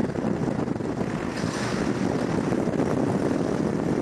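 Hurricane wind blowing in a steady, dense rush and buffeting the microphone, with a brief brighter hiss about a second and a half in.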